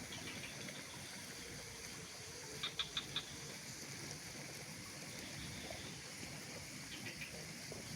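Steady outdoor hiss of mountain ambience, with a quick run of four short, sharp animal calls about three seconds in and two fainter ones near the end.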